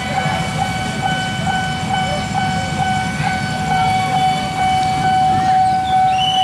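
Level-crossing warning bell sounding a steady electronic tone that pulses about twice a second, over the low rumble of traffic waiting at the lowered barrier. A second, higher tone joins near the end.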